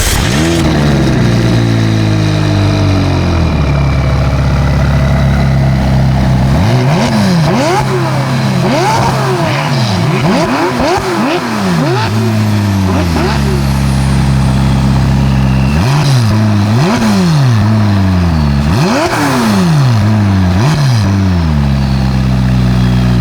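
McLaren 570S's M838T twin-turbo V8 on its standard exhaust, catching, flaring and settling to a steady idle, then revved in a string of quick blips that rise and fall, in two bursts with idle between.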